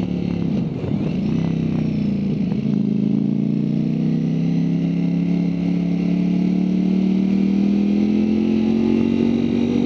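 Ducati Streetfighter V4 S's V4 engine heard from onboard while cornering. The engine note dips about a second in, then climbs slowly and steadily in 2nd gear as the bike picks up speed.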